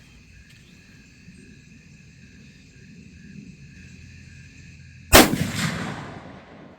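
A single .30-30 rifle shot about five seconds in, dying away over about a second and a half.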